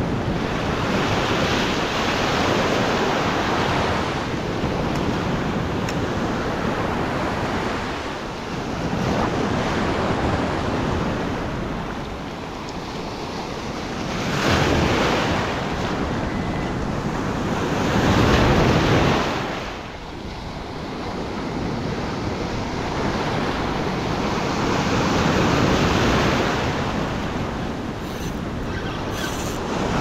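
Ocean surf breaking and washing over the shallows, swelling and fading every few seconds, loudest about halfway through.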